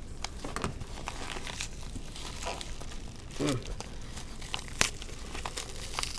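Yellow padded mailer envelope being torn open and crumpled by hand: irregular crinkling and tearing, with one sharp crack near the end.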